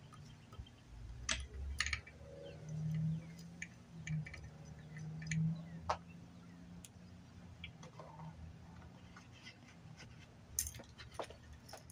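Small scattered metallic clicks and taps of a flathead screwdriver and needle-nose pliers working on a 50cc scooter carburetor while unscrewing its main jet, over a low background hum.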